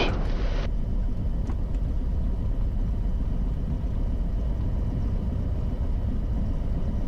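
Beechcraft Bonanza's piston engine running at low power as the plane rolls off the runway, heard as a steady low rumble in the cockpit. A brief hiss at the very start cuts off suddenly.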